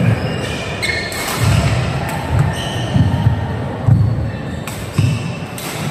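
Badminton rally: players' feet thudding on the court about five times at uneven intervals, with several sharp cracks of rackets striking the shuttlecock.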